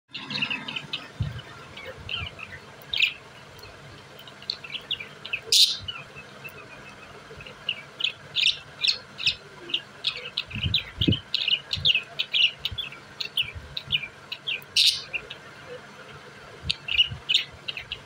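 A group of caged budgerigars chirping and chattering: a fast, irregular string of short high chirps, with two sharper, louder calls, one about five and a half seconds in and one near fifteen seconds. A few low thumps come around ten to eleven seconds in.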